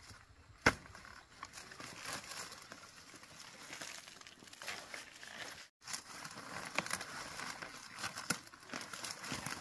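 A single thump about a second in, then crackling and rustling of dry leaf litter, stems and soil-caked roots as a taro plant is levered out of the ground with a bamboo pole and handled. The sound cuts out for an instant near the middle.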